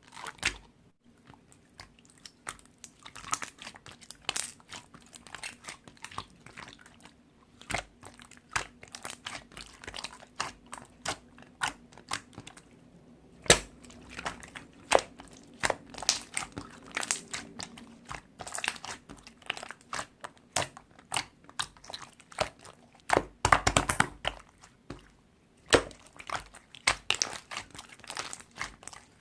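Slime being squished and pulled by hand, giving a dense run of irregular sticky clicks, crackles and pops, thickest about three quarters of the way through.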